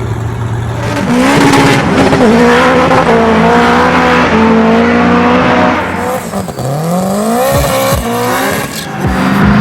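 A car engine revving hard under acceleration. Its pitch holds high, then drops and climbs again several times in the second half.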